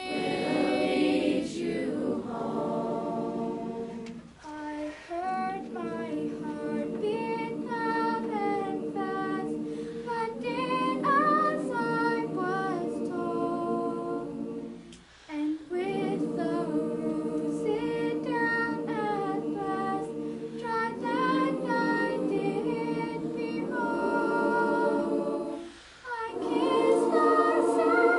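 Junior high school choir singing unaccompanied, holding sustained chords under a girl soloist's melody. The singing drops briefly between phrases about four, fifteen and twenty-six seconds in.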